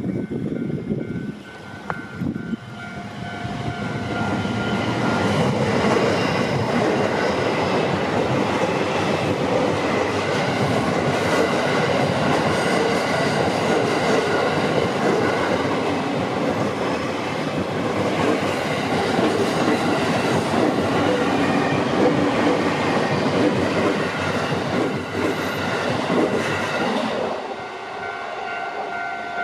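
A train passing through a level crossing, its wheels clattering on the rails for over twenty seconds as it builds up, holds loud and then falls away near the end. The crossing's warning bell rings with a steady tone before the train reaches the crossing and again after it has passed.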